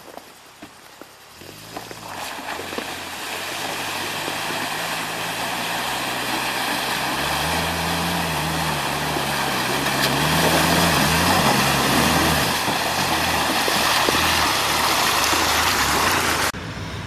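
UAZ-452 van's engine labouring as it drives through a flooded, muddy forest track, growing louder as it approaches, with the revs rising and falling in the middle stretch, over the rush of water and mud splashing around the wheels.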